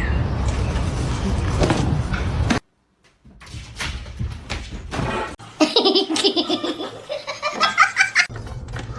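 A loud, even noisy rush for about two and a half seconds, cut off suddenly. Then, after a short gap, a person laughs hard in quick high-pitched pulses for about three seconds.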